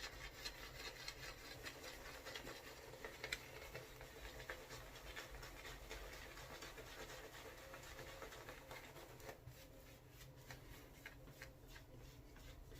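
Faint swishing and light scratching of a horsehair shaving brush working soap lather in a bowl, with many small irregular ticks.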